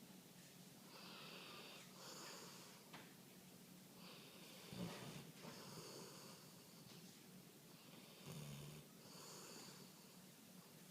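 A sleeping pet snoring softly, each breath carrying a high whistling wheeze, about one breath every two seconds.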